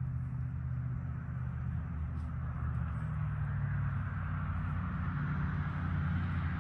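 A steady low engine hum, shifting slightly in pitch about three seconds in.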